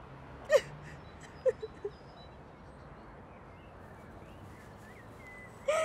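A person's brief wordless vocal sounds: one short falling sound about half a second in, a few small ones soon after, and a louder one at the end, over a faint outdoor background with a few soft high chirps.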